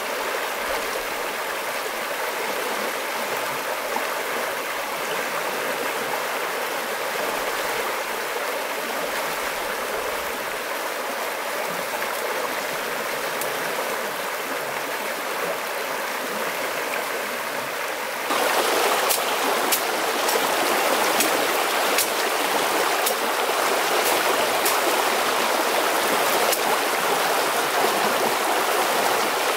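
Shallow rocky stream running steadily over stones. About 18 seconds in the sound turns abruptly louder and brighter, and scattered sharp clicks and crackles come over the running water.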